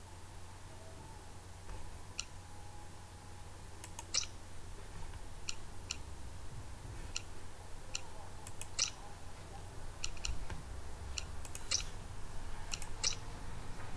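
Computer mouse clicking, about a dozen sharp clicks at irregular intervals, some in quick pairs, over a steady low hum.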